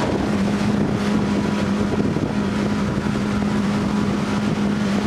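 Motorboat engine running steadily under way, a constant hum, with water rushing past the hull and wind on the microphone.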